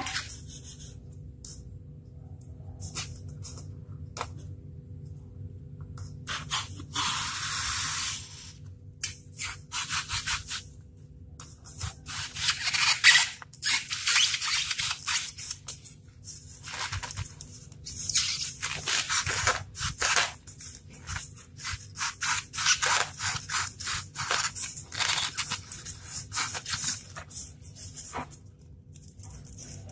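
Utility knife blade cutting and scraping a block of polystyrene foam: a long run of short scraping strokes in uneven bursts, with one longer scrape about seven seconds in. A faint steady hum runs underneath.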